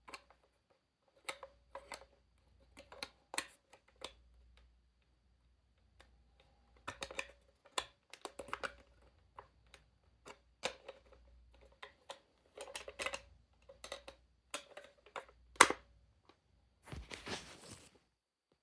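A clock radio being handled: irregular clicks and knocks of its buttons and switches being pressed, with one sharper knock about three-quarters of the way in and a short rustling burst near the end.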